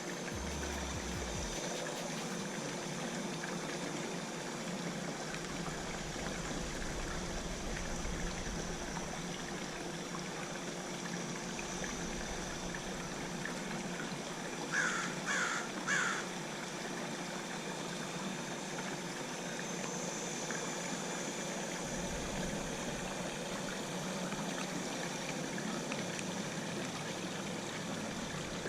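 Water trickling steadily with a faint steady hum, broken about halfway through by three short calls in quick succession.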